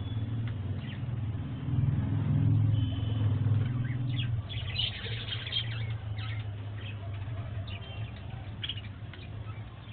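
Budgerigars chirping in short, scattered calls, most busily about five seconds in, over a low rumble that is loudest in the first four seconds and then eases.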